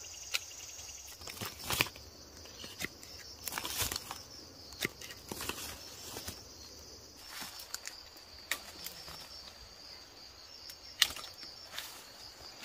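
Steady high-pitched insect trilling, with scattered sharp clicks, snaps and rustling over it; the loudest snap comes about eleven seconds in.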